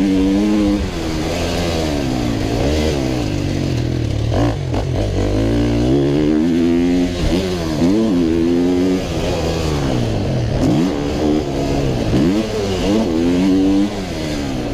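125cc motocross bike engine revving hard around a track, its pitch climbing and then dropping every two to three seconds as the throttle is opened and chopped through corners and jumps, with wind rushing over a helmet-mounted camera.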